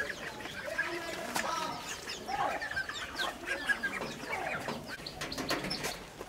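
Domestic chickens clucking in a string of short calls.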